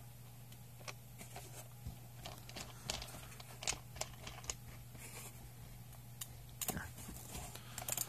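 Faint scattered clicks and handling noise as a plastic ball top is screwed onto an arcade joystick shaft, over a steady low hum.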